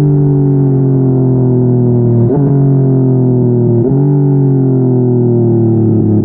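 Yamaha MT-09's three-cylinder engine through a Yoshimura R55 slip-on exhaust, slowing on engine braking, its note falling steadily. About two and four seconds in, a quick downshift makes the pitch jump up sharply before it falls again.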